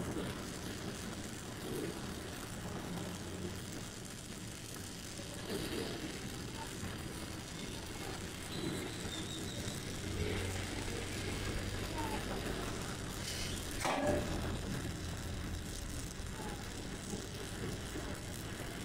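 Oxy-fuel gas welding torch flame hissing steadily as it heats the tube and melts an aluminium filler rod, with a brief sharp noise about three-quarters of the way through.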